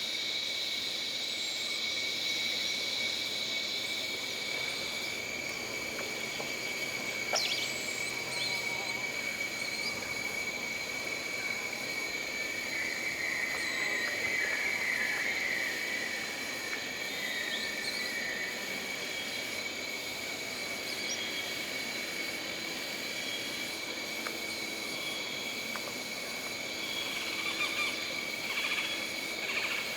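Jungle ambience: a steady high insect drone, with a second, higher buzzing layer that fades out about five seconds in. A run of chirping calls comes in the middle, and a few short calls sound near the end.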